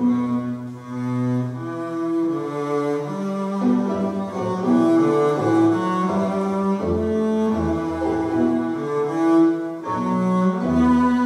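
Recorded classical music with bowed low strings playing a slow melody of long held notes that step up and down, played back over Heybrook HB1 bookshelf speakers in a room.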